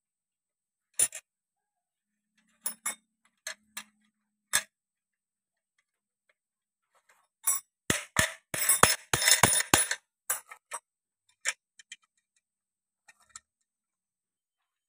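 Sharp metallic clicks and clinks of hand tools working the bolts of a clutch assembly and its improvised puller: scattered single clicks at first, then a rapid run of clicks for about two seconds near the middle, then a few more.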